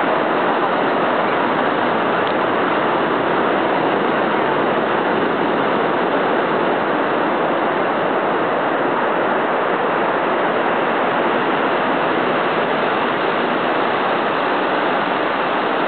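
Steady roar of ocean surf breaking on the shore, an even rushing noise that holds the same level throughout.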